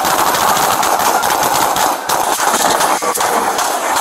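A rapid, sustained barrage of handgun shots from several police officers firing at once, the shots coming so close together that they run into one another.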